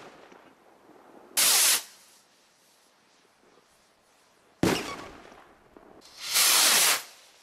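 Fireworks: the fading echo of a bang, a short loud hiss about a second and a half in, then a sharp bang about four and a half seconds in that rumbles away, and a longer loud hiss near the end as a stick rocket launches.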